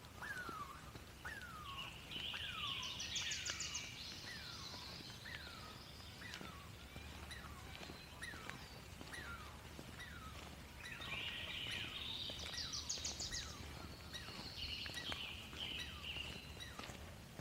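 Birdsong: one bird repeats a short falling whistled note about every two-thirds of a second, while a songbird sings two long trilling songs, one near the start and one past the middle, over a low steady background rumble.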